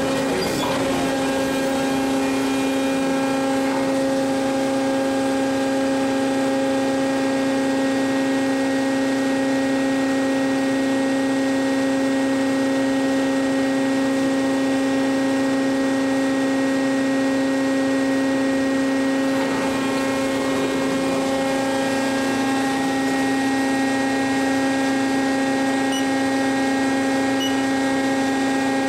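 Forklift battery-changing machine running, a loud steady electric drone with a strong even pitch, its upper tones shifting slightly about two-thirds of the way through.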